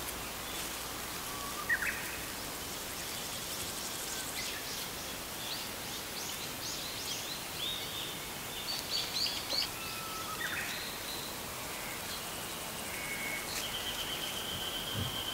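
Countryside ambience: a steady background hiss with scattered wild bird calls, short chirps and whistles, a busier cluster of calls in the middle, and a held high note starting near the end.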